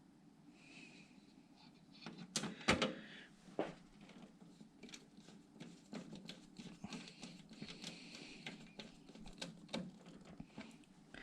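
Small clicks and knocks of computer hardware parts being handled and fitted by hand, with a louder clatter of a few knocks about two and a half seconds in.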